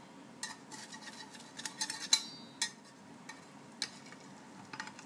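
A metal utensil scraping and clinking against a baking dish as the baked crepes are served. About two seconds in, one clink rings briefly, and a few lighter taps follow later.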